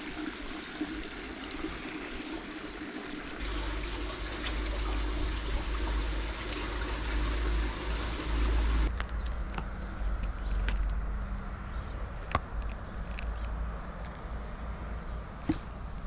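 Flowing river water, a steady rushing hiss, with a low rumble from a few seconds in. About nine seconds in, the rush thins and a few sharp clicks stand out.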